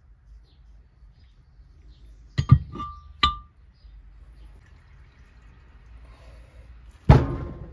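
Metal parts of a Wilton bullet vise being set down on a towel-covered workbench: a quick cluster of knocks and clinks with a short ring about two and a half to three and a half seconds in, then a single heavier knock near the end.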